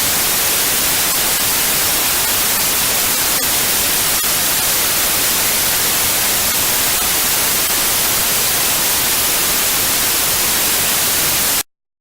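Generated white noise: a loud, steady, even hiss with no tone in it, that cuts off suddenly near the end.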